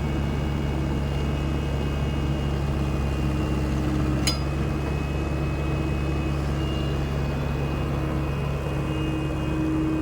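Diesel engine of a SANY SY75C Pro excavator running with a steady, even drone, with a single short sharp click about four seconds in.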